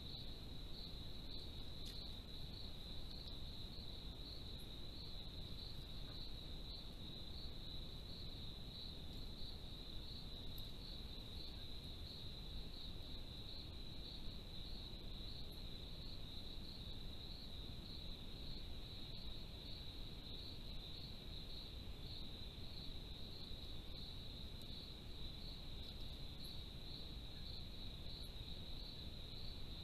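Crickets chirping in one unbroken high-pitched trill, over a low steady background hiss.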